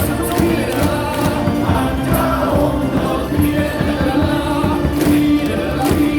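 Baseball stadium crowd singing a team cheering song together over loud stadium music with a beat.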